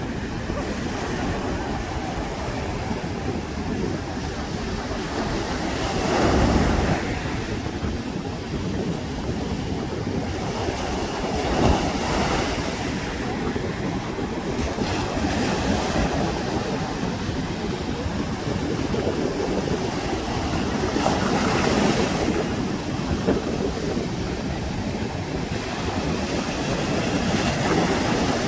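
Sea surf washing onto a sandy beach: a continuous rush of breaking waves that swells louder every several seconds as each wave comes in.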